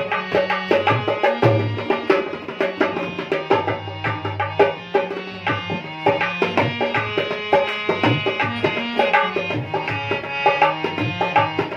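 Dholak played in a quick, busy rhythm, its bass head giving deep booming strokes, with a harmonium holding and changing melody notes over it; an instrumental passage with no singing.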